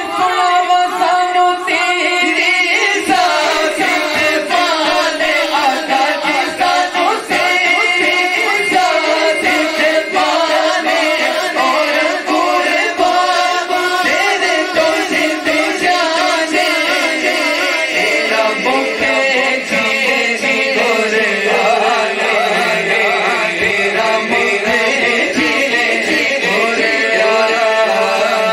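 Two men's voices singing a naat, a devotional song in praise of the Prophet Muhammad, into microphones through a sound system, in a continuous, unbroken melodic chant.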